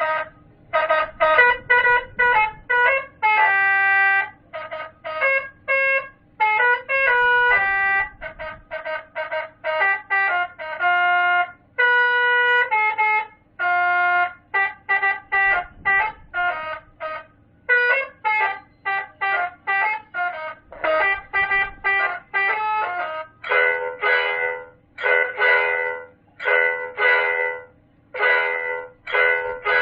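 A 60-watt Basuri telolet horn module playing its tooting melodies: rapid strings of short horn notes that jump in pitch. About two-thirds of the way through, the pattern changes to fuller, chord-like toots repeating roughly twice a second.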